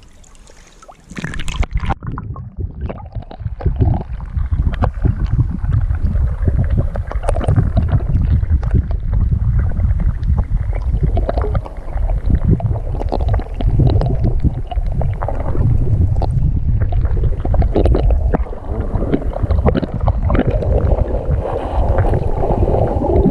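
Water sloshing and gurgling around an action camera held under a river's surface: a dense, muffled rumble with scattered crackles. It starts suddenly about a second in, as the camera goes under.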